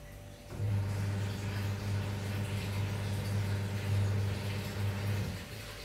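A steady low electrical hum comes on about half a second in and stops shortly before the end.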